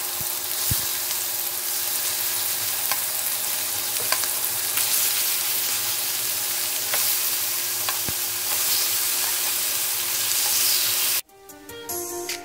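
Chicken tenderloins sizzling steadily as they fry in oil in a nonstick pan, with a few light clicks. The sizzle cuts off suddenly near the end, and soft plucked-string music begins.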